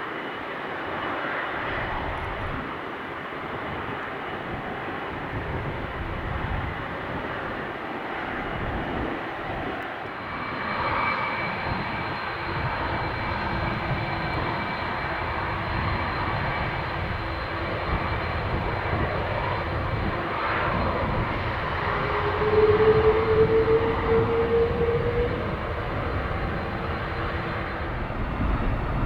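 Airbus A330-200 jet engines running: a steady rumble with a thin high whine, getting louder about two-thirds of the way through, where a short rising tone comes in.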